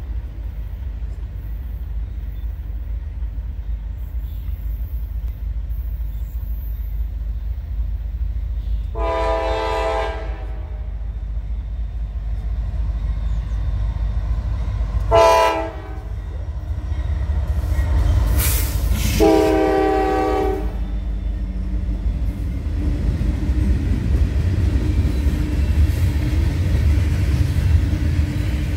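Norfolk Southern diesel locomotives approaching and sounding their air horn three times: a long blast, a short one, then another long one. Under it a low train rumble grows louder as the locomotives pass and a string of Herzog ballast hopper cars rolls by.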